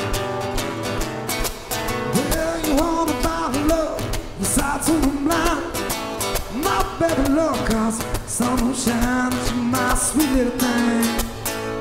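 Two acoustic guitars strummed together in a steady rhythm, with a man's lead vocal coming in about two seconds in.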